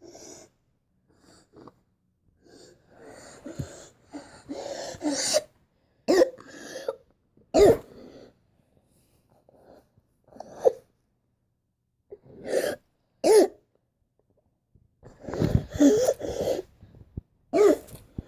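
A person coughing repeatedly as a symptom, along with the wheezing the recording was made to show a doctor. After a few seconds of noisy, breathy breathing come single sharp coughs every second or two, then a run of several coughs close together about three-quarters of the way through, and one more near the end.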